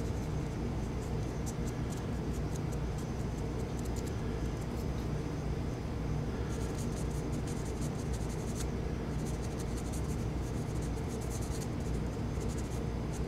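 Felt tip of a gun blue touch-up pen rubbing and dabbing on the corners of a titanium framelock knife, in clusters of fine scratchy ticks, over a steady low hum.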